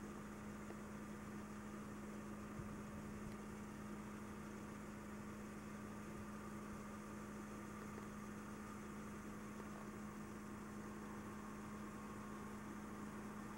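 A steady low hum under an even hiss, unchanging throughout.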